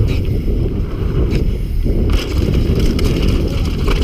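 Downhill mountain bike ridden fast over a dirt trail, heard from a bike- or helmet-mounted action camera: wind buffeting the microphone and tyres rumbling over dirt, with the bike rattling and a few sharp knocks.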